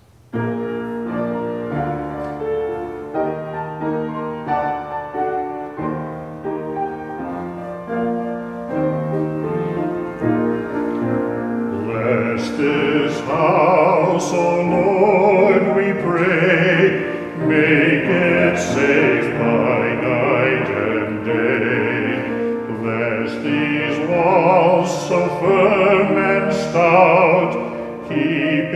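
Solo piano starts suddenly and plays alone for about twelve seconds. Then a man begins singing a solo with vibrato over the piano accompaniment.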